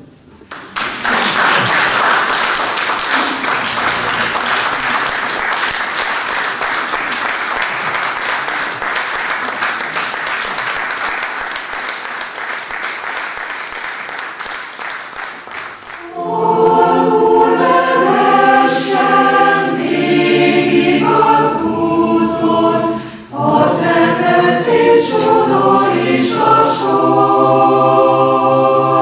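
Audience applauding for about fifteen seconds, fading slightly. Then a chamber choir starts singing in several-part harmony, about sixteen seconds in.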